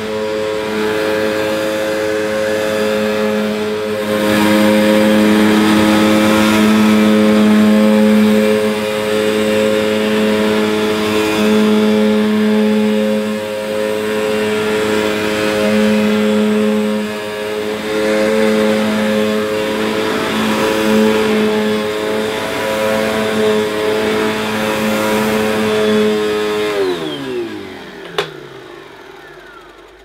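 Hoover Purepower bagged upright vacuum cleaner running steadily as it is pushed back and forth over carpet, its motor hum swelling and dipping with the strokes. About 27 seconds in it is switched off and the motor winds down, falling in pitch, followed by a single click.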